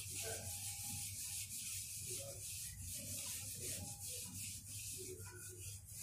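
Pencil lead rubbing and scratching on paper in light, repeated strokes as an oval is sketched.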